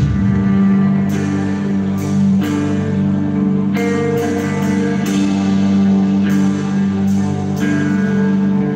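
Loud live black metal: distorted electric guitars holding long sustained chords that change about every one and a half seconds, with a cymbal crash at each change over the drums.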